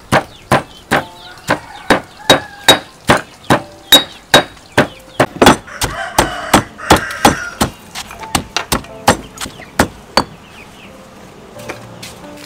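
Pestle pounding in a heavy stone mortar, about two and a half dull thuds a second, crushing lemongrass, garlic, shallots and turmeric into a wet paste. The strokes soften after about eight seconds and stop a little after ten.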